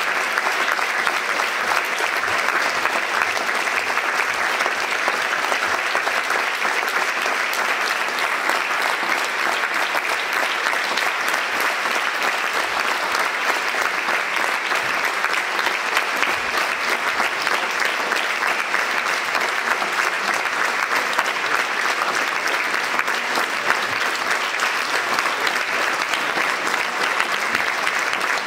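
Theatre audience applauding: dense, steady clapping that keeps an even level throughout.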